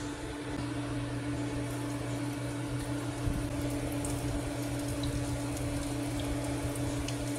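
Chicken nuggets sizzling in hot oil in a frying pan as they are set in one by one, over the steady hum of an induction cooktop.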